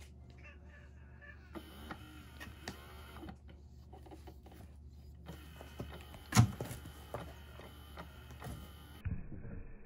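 Small electric motor of a cat toy whirring and rattling as it moves its string wand. It runs briefly, pauses, then runs again for several seconds before cutting off suddenly, with clicks throughout and one sharp knock about six seconds in.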